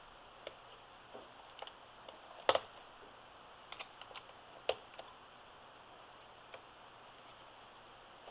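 Scattered light clicks and taps of a small screwdriver and loose parts against an opened laptop's chassis and motherboard, the two loudest about two and a half and four and a half seconds in.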